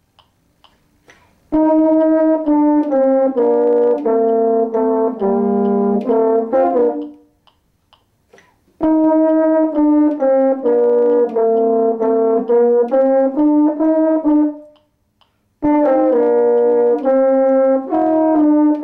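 Two French horns playing a duet together, in three phrases of several seconds each with pauses of a second or two between them; the first phrase begins about a second and a half in.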